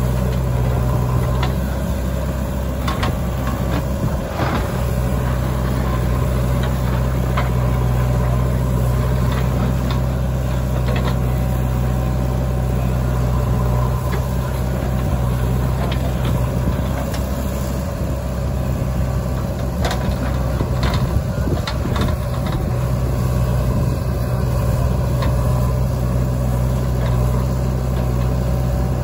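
JCB 3DX backhoe loader's diesel engine running steadily under load while the backhoe swings, digs and dumps soil, with occasional sharp knocks and clanks from the working arm and bucket.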